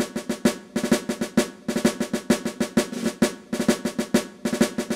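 Intro music: a snare drum beating rapid strokes in short groups, with rolls.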